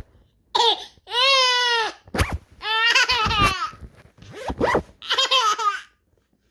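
Ten-month-old baby laughing in three long, high squealing peals, with short quick zipper strokes between them; the zipper sound is what sets off the laughter.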